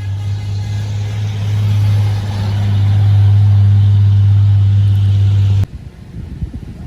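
A large bus's engine running close by, a steady low drone with a rushing noise that grows louder from about two seconds in, then cuts off abruptly a little over five seconds in.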